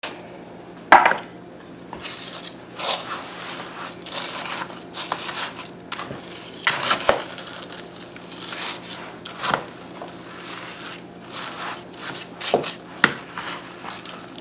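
Wooden spoon stirring and mashing ground beef, saltine cracker crumbs, onion and tomato sauce in a plastic mixing bowl: irregular scrapes and sharp knocks of the spoon against the bowl, the loudest about a second in.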